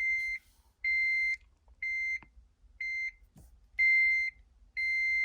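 Integra Type R's dashboard warning buzzer beeping six times at key-on, a steady high electronic tone about once a second with the beeps of slightly uneven length, with a faint knock between two of them.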